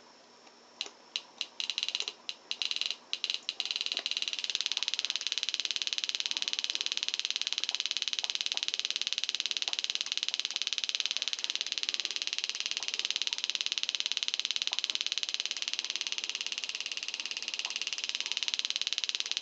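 Small speaker driven by a two-transistor NPN/PNP relaxation oscillator (a Forrest Mims audible light probe), with a 1 megohm resistor in place of the photoresistor. It sputters on and off in short bursts as the resistor is pushed into the breadboard, then settles about four seconds in into a steady, rapid train of clicks: the slow charging of the timing capacitor through the high resistance gives a clicking rate rather than a high-pitched tone.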